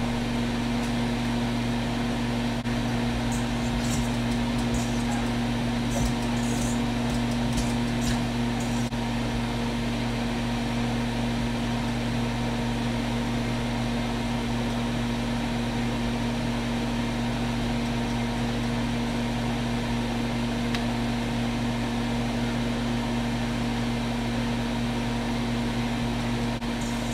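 Steady machine hum from a running appliance or fan, an even low drone that does not change. A few faint light clicks sound in the first several seconds.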